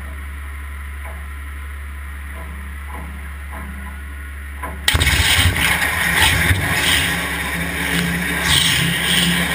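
Waterjet cutting machine: a steady low hum while the cutting head moves to its next position, then about five seconds in the high-pressure water jet switches on with a sudden loud hiss that runs on as it pierces and cuts 5 mm plywood.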